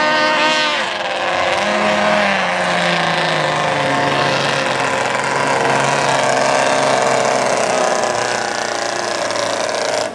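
Classic racing motorboat's engine running hard and rattling at high revs, its pitch falling as the boat goes by.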